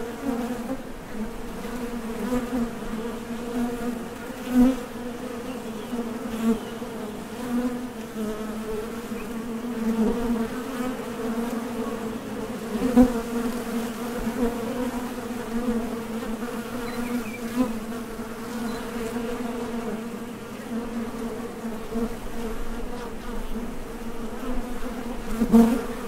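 A crowd of honey bees buzzing at the entrance of a top-bar hive as foragers take off and land: a steady low hum, swelling briefly several times as bees come and go close by.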